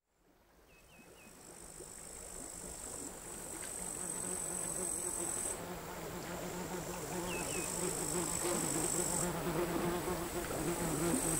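Crickets singing, a continuous high-pitched buzz that swells and eases in bouts of two or three seconds, over quiet, chaotic lapping of sea waves. The sound fades in from silence over the first few seconds.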